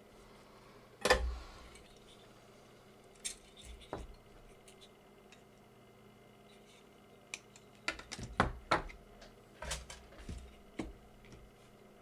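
Small hard objects knocking and clattering: one sharp knock about a second in with a brief ringing tail, then scattered clicks and taps, most of them in the second half.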